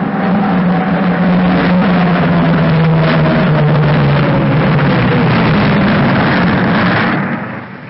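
Twin-engine propeller airliner flying low overhead: a loud, steady engine drone whose pitch falls as the plane passes, fading away near the end.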